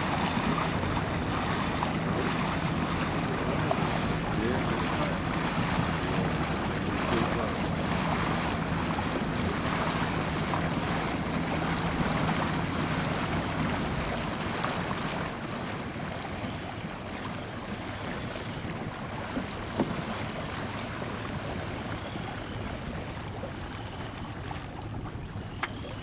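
Small boat's motor running steadily under water rushing past the hull and wind on the microphone. About halfway through the motor's low hum fades out and the rushing gets quieter.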